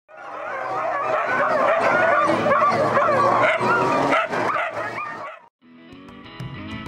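A pack of sled dogs barking and yelping all at once in many overlapping voices, fading in and then cutting off suddenly about five seconds in. Guitar music starts just after.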